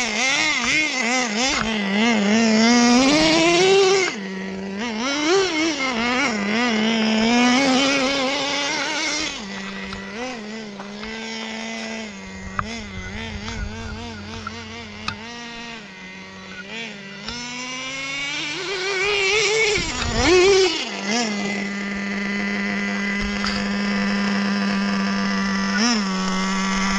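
A small motor's high whine, its pitch rising and falling repeatedly, then holding steady for the last several seconds.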